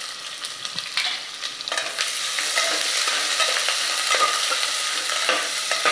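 Sliced onions sizzling as they fry in hot mustard oil in a pressure cooker, with a spatula scraping and knocking against the pot as they are stirred. The sizzle grows louder about two seconds in.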